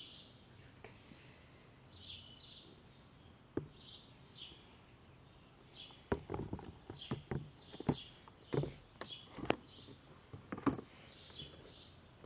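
Small birds chirping in short repeated calls in the background. From about halfway through, a run of irregular knocks and thumps, louder than the chirps.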